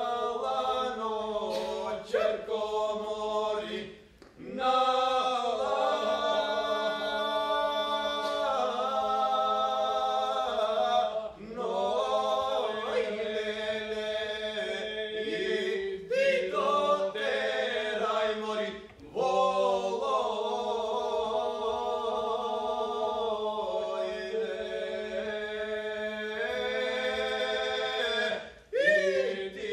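Three men singing a Macedonian folk song a cappella in close harmony, one voice holding a steady low drone under the moving upper lines. The phrases are long and held, with brief pauses for breath about three times.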